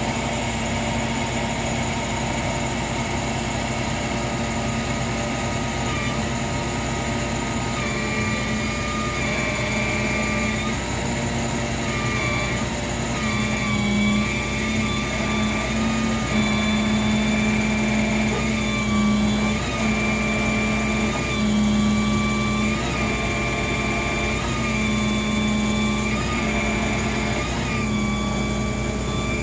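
A motor vehicle engine running steadily, with a high whine that wavers in pitch every few seconds.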